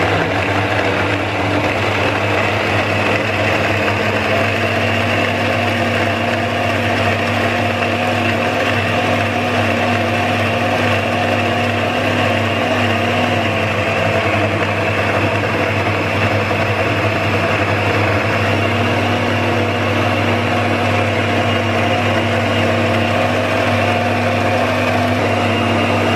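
Vacuum blender's motor running steadily at full speed, puréeing cherries with soaked dates and figs into a thick fruit spread. Its steady hum shifts slightly in pitch a few times as the mix thickens and churns.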